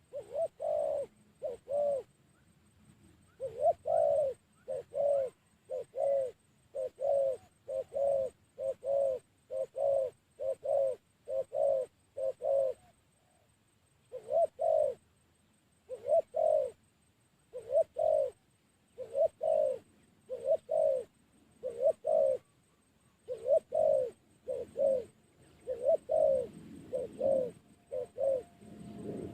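A dove cooing in a long series of short, arched notes, roughly one a second with a few short pauses, as it warms up its voice.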